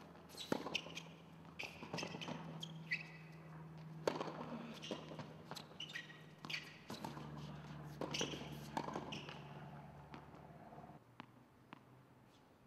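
Tennis rally on a hard court: sharp pops of the ball off the racket strings and bounces on the court, coming every second or so and thinning out near the end, over a steady low hum.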